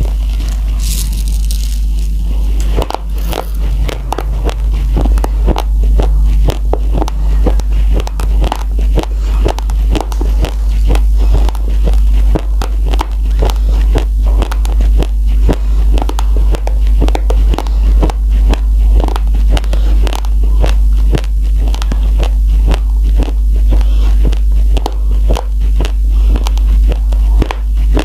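Raw rice grains being chewed: a steady run of crisp crunches, about two or three a second, beginning about three seconds in, over a low steady hum.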